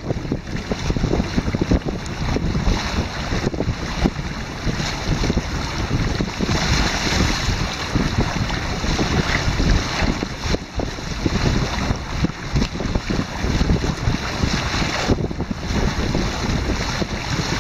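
Water rushing and splashing along the hull and outrigger of a Hobie Mirage Tandem Island sailing trimaran under way, with wind buffeting the microphone.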